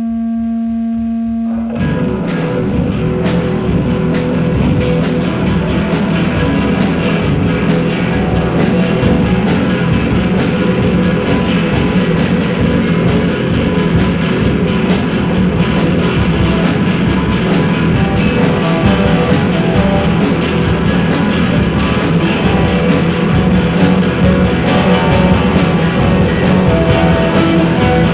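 Live rock band playing: a held droning chord, then about two seconds in the drums and guitars come in together and keep going at a steady driving beat, growing slightly louder.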